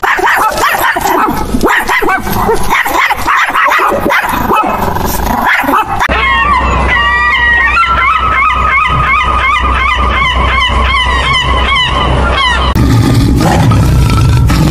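A dog barking and yipping in short calls, then seagulls crying in a rapid run of repeated rising and falling calls over a steady low rumble. Near the end a tiger's deep growl comes in.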